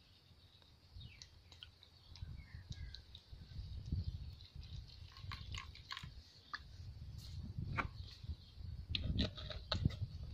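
Green tea poured from a plastic drinks bottle into a plastic tub, with the bottle handled: scattered plastic clicks and crinkles over a low rumble that grows louder toward the end.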